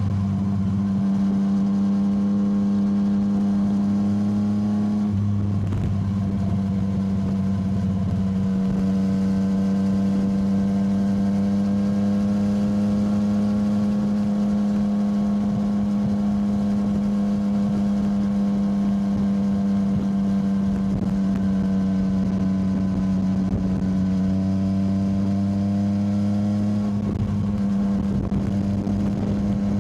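Yamaha motorcycle engine running at a steady cruising engine speed under wind and road noise. The note breaks briefly twice, about five seconds in and near the end, where the throttle eases or a gear changes.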